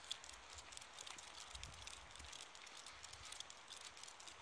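Near silence: faint outdoor background hiss with scattered small clicks and a faint low rumble about a second and a half in.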